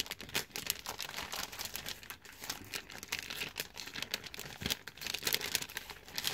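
Wrapping being crinkled and torn off as an item is unwrapped: a steady run of irregular crackles.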